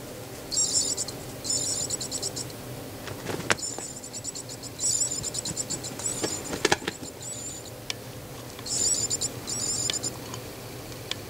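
Short bursts of high-pitched, insect-like chirping trills, each under a second long and repeating every second or so, over a steady low hum. There are two sharp knocks, about three and a half seconds in and near the middle.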